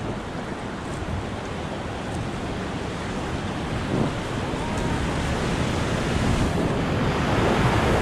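River whitewater rushing, with wind buffeting the microphone, growing steadily louder.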